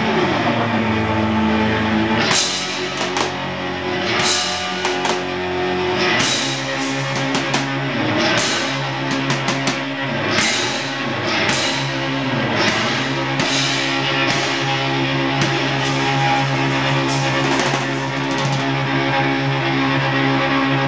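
Live rock music from electric guitar and drum kit, the drums coming in about two seconds in.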